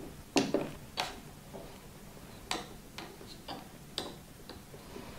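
Buttons on the Ninja Foodi Max control panel being pressed to set the cooking time: about eight short, sharp clicks at uneven intervals, the first two the loudest.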